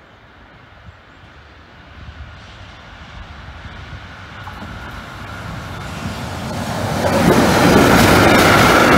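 Freight train of tank wagons hauled by an E494 electric locomotive approaching and passing. A rumble grows steadily over several seconds and becomes loud about seven seconds in as the locomotive and tank wagons go by, with the wheels clicking rapidly over the rail joints near the end.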